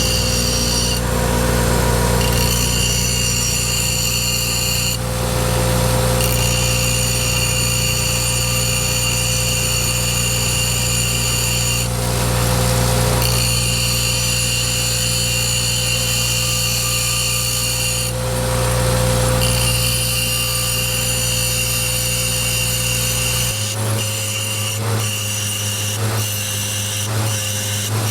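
Grinding wheel's motor running with a steady hum and high whine while a steel chisel is ground against the wheel, the grinding hiss swelling and easing every few seconds. Near the end the deep part of the hum drops away abruptly.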